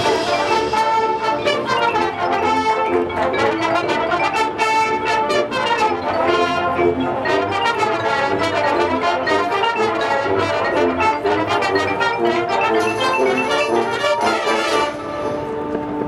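High school marching band playing its field show, the brass section (trumpets and trombones) carrying a busy passage of quickly changing notes.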